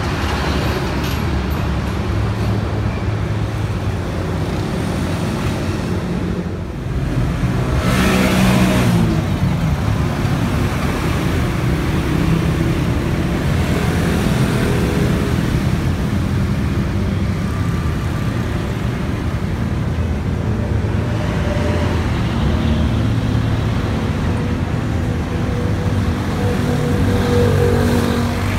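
Vehicle engines running steadily amid road traffic noise, with a brief louder swell about eight seconds in as a vehicle passes.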